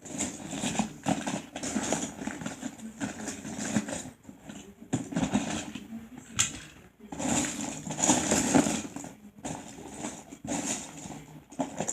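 Plastic Lego pieces clattering and rattling as a pile of bricks is rummaged through by hand, a dense run of small irregular knocks.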